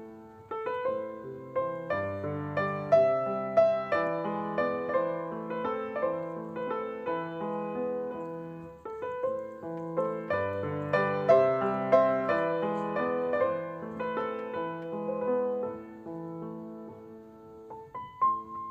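Background piano music: a melody of struck notes over lower chords.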